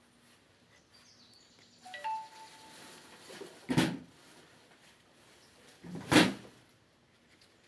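A short metallic ring about two seconds in, then two loud knocks a little over two seconds apart, the second the louder: parts or tools being handled during work on a washing machine.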